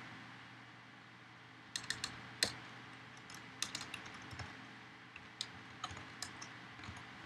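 Computer keyboard keystrokes: faint, intermittent typing in short clusters of a few keys, as text is deleted and retyped in a terminal editor.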